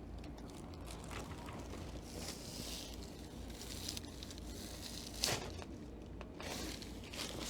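Soft rustling of clothing and the padded treatment table as a patient is moved through a chiropractic stretch, with one brief, louder sound about five seconds in.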